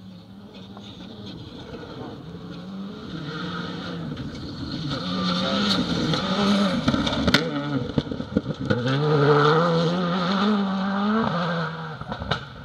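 Rally car on a gravel stage approaching and passing at speed, its engine note climbing and dropping repeatedly as it builds to its loudest in the second half, with gravel crunching under the tyres. A single sharp crack sounds about halfway through.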